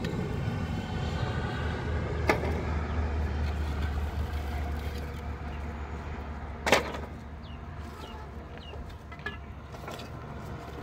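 A motor vehicle engine running with a low, steady rumble that weakens after about six seconds. Two sharp knocks cut through it, the louder one about seven seconds in.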